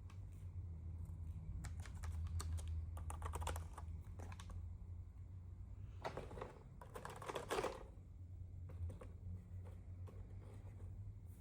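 Keys of an Anko multimedia keyboard being typed on in two flurries of quick clicks, with scattered single key presses between them, over a steady low hum.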